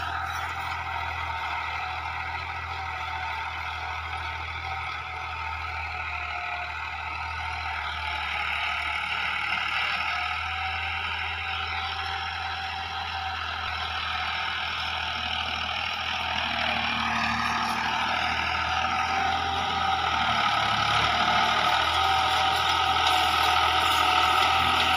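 Ford 3610 tractor's three-cylinder engine running steadily under load as it pulls a cultivator through ploughed soil, getting louder toward the end as it draws nearer.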